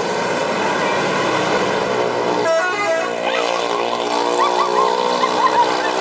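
Large bus passing close by with its engine running, then from about two and a half seconds in its multi-tone 'telolet' horn sounds a long, steady blast.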